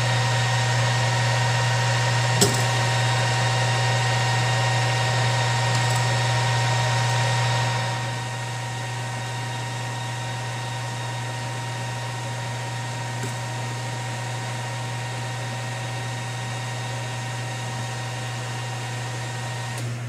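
Metal lathe running steadily with no cut, spinning brass rod stock in its collet to check that the stock runs true. The hum drops a little about eight seconds in, and there is a single click early on.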